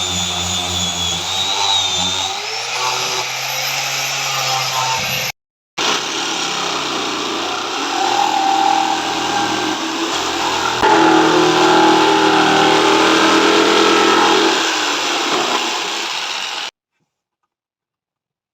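Power tool motor running on wood, its pitch shifting as it works. The sound breaks off briefly about five seconds in, resumes, and stops abruptly near the end.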